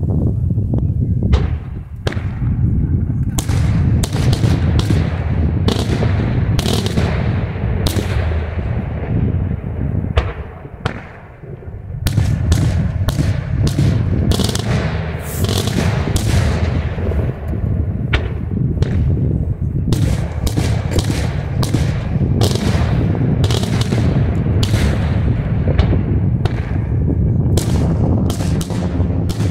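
Daytime fireworks display: a dense barrage of aerial shells bursting overhead, dozens of sharp bangs in quick succession, with a brief lull about ten seconds in.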